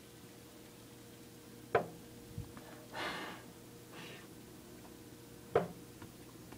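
Quiet room with a faint steady hum, broken by two sharp clicks about four seconds apart and a couple of soft breath-like puffs between them.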